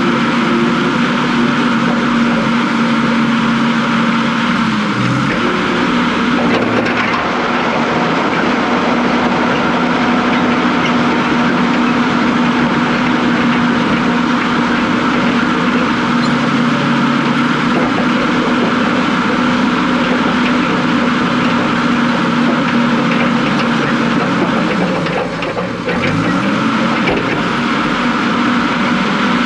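Diesel engine of a heavy earthmoving machine running steadily at working speed. Its pitch dips briefly about five seconds in and again a few seconds before the end, then climbs back.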